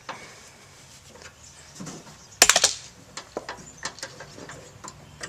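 A small screwdriver clicking and tapping against a latch rod clip and the latch rod inside a 2001 Chevy Silverado tailgate, as the clip's tab is pried open. A quick cluster of sharp clicks comes about two and a half seconds in, then scattered single clicks.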